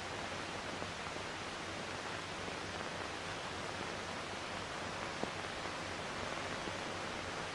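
Steady hiss and faint low hum of an old film soundtrack, with one faint click about five seconds in.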